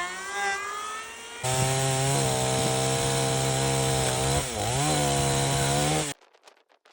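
Chainsaw running and cutting timber. It revs up sharply about a second and a half in, holds at high speed under load, bogs briefly near the end and picks back up, then stops abruptly.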